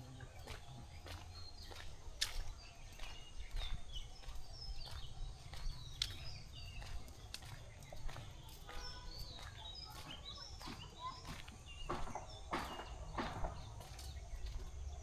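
Footsteps on a brick road, irregular sharp steps about one or two a second, with small birds chirping and a low rumble of wind on the microphone.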